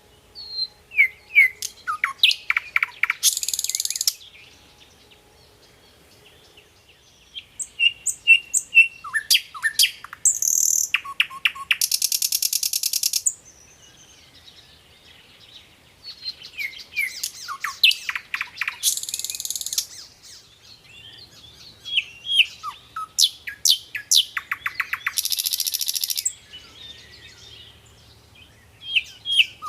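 Nightingale singing in four phrases separated by short pauses. Each phrase runs through rapid repeated notes and clear whistles and ends in a fast, buzzy high trill.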